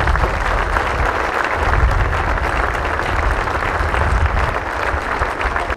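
A crowd applauding steadily, with a low rumble underneath.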